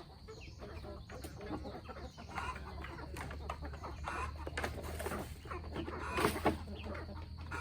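A flock of chickens clucking, many short irregular calls overlapping.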